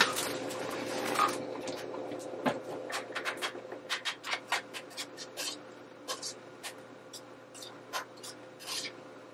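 Spatula scraping and clicking against a skillet as chopped bell pepper and onion are stirred in olive oil, in many short irregular strokes. A faint steady hum runs underneath.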